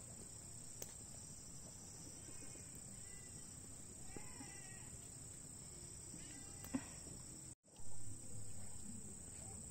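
Faint outdoor ambience: a steady high-pitched drone of crickets, with a few faint distant calls over it. The sound drops out briefly about three-quarters of the way through.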